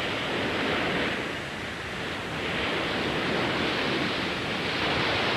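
Stormy sea: waves and wind in a steady rush that swells and eases.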